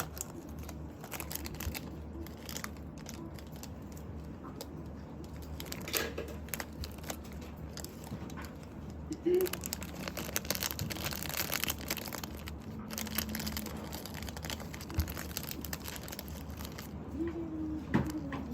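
Plastic packaging crinkling and rustling as it is handled, with many small clicks and rustles throughout.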